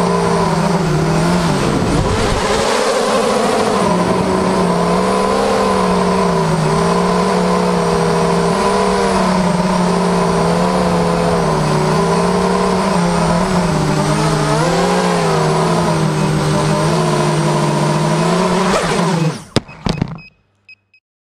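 A 250-size FPV racing quadcopter's brushless motors and propellers whine loudly close to the onboard camera, the pitch rising and falling with throttle. Near the end the motors wind down, a few knocks follow as it comes down on the floor, and then it stops.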